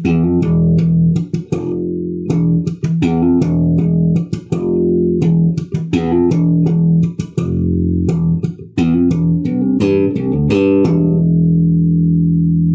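Electric bass played slap style: a riff of thumb slaps, muted dead notes, popped strings and hammer-ons, with many sharp percussive hits over ringing low notes. Near the end it settles on one long held low note.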